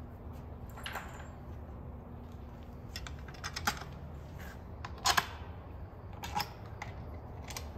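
Small steel valve cover bolts clicking and clinking as they are handled and set into the bolt holes of an aluminium Mazda Miata valve cover: several separate light clicks, the loudest about five seconds in, over a steady low hum.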